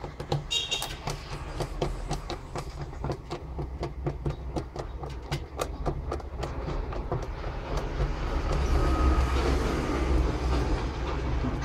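Screwdriver undoing the screws of a plastic battery charger case: a regular clicking of about four clicks a second, turning to a rougher scraping sound for the last few seconds.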